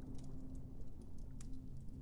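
Fireplace crackling: scattered sharp pops and ticks over a deep, steady low rumble, with a faint held low note underneath.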